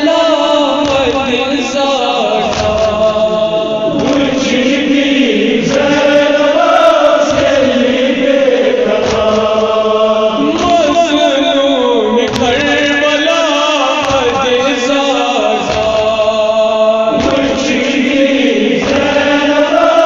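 Kashmiri nauha, a Muharram mourning lament, chanted by voices in long held phrases a few seconds each.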